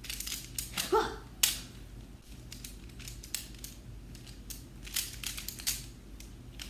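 Plastic twisty puzzle being turned fast in a speed solve: a quick, irregular run of sharp clicks and clacks, with a brief vocal sound about a second in.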